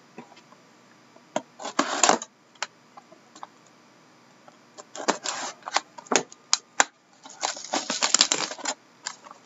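Plastic shrink wrap on a trading-card box being slit and torn open: scattered sharp clicks and crinkly rustling, loudest about two seconds in, around five seconds, and from about seven and a half to nine seconds.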